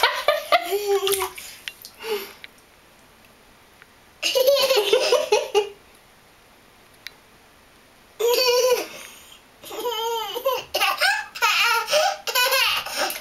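A toddler laughing and vocalizing in high-pitched bouts that bend up and down in pitch, with short quiet pauses between them: one at the start, one about four seconds in, one about eight seconds in, and a longer run near the end.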